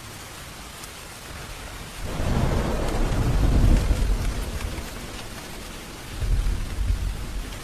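Steady rain falling, with a roll of thunder that breaks in about two seconds in, swells and fades, and a second, shorter rumble near the end.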